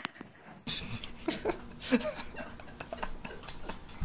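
Irregular light taps and clicks of a small dog's sock-covered paws on a hardwood floor as it walks.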